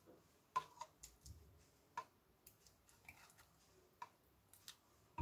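A metal spoon clicking faintly and irregularly against a plastic jug and a bowl while dressing is scraped out onto shredded fennel.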